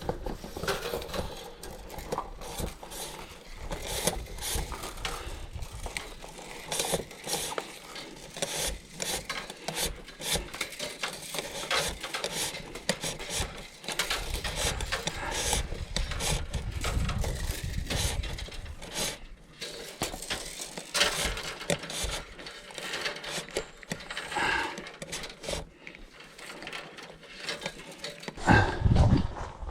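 Wire being pushed by hand through 1/2 inch EMT metal conduit, scraping and rubbing inside the pipe with irregular clicks and knocks.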